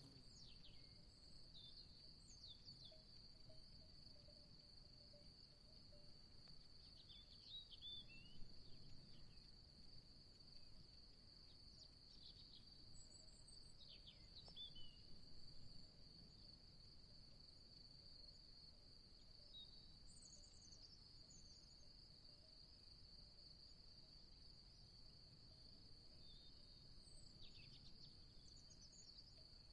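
Faint, steady, high-pitched insect trill, a continuous chorus over a low background rumble, with a few short high chirps scattered through it.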